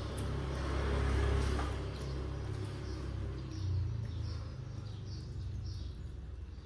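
Wet chewing and lip-smacking while eating rice by hand, with short squeaky smacks about twice a second over a low rumble.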